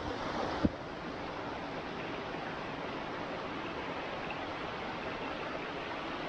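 Steady rushing of a mountain brook flowing over rocks, with one short thump shortly after the start.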